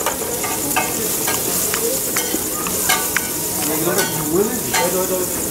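Steady sizzle of food frying in a street-food stall's kitchen, with scattered light clicks and clinks.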